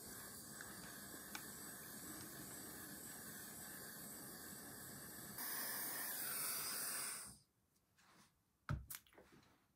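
Small handheld gas torch flame hissing steadily as it heats a silver spoon, louder for the last two seconds before it shuts off suddenly about seven seconds in. A short knock follows near the end.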